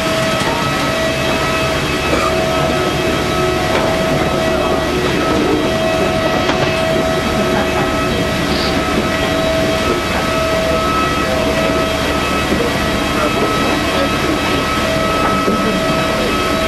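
Steady, loud machinery noise with a constant whine and a broad rushing hum beneath it.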